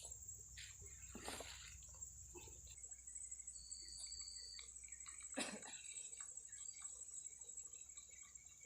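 Faint outdoor ambience: a steady high-pitched hum with a few brief soft knocks and rustles, the clearest about five and a half seconds in.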